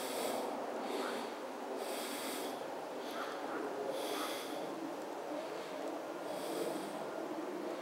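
A person breathing hard through the nose close to the microphone, a short hissy breath every second or two, over a steady rushing background noise.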